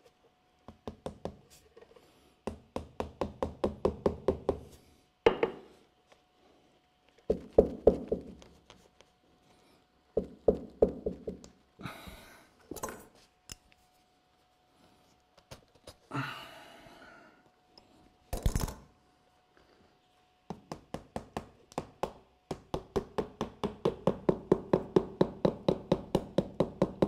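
Rapid runs of knocking at a bonsai pot, about six strikes a second, in bursts of a couple of seconds and one longer run near the end, with short gritty rustles between and one hard hit about two-thirds through.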